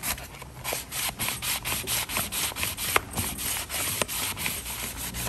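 Fine 800-grit sandpaper on a hand sanding block rubbed back and forth over a plastic intake manifold's flange, about three scratchy strokes a second, smoothing off heat-damaged, melted plastic.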